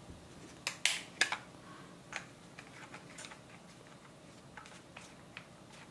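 Scattered light clicks and taps of a 360 action camera and the plastic screw mount of a selfie stick being handled, a few sharper ones in the first second and a half and fainter ticks later.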